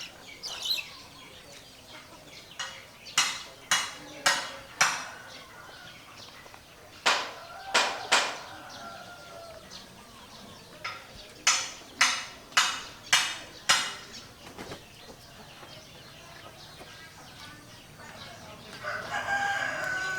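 Rooster and hens: groups of short, sharp, loud sounds about half a second apart, three to five at a time, then a longer rooster call near the end.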